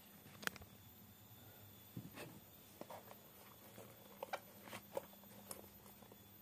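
Faint scattered clicks and light taps, about half a dozen over several seconds, from a hand handling wristwatches and their display boxes, over a low steady hum.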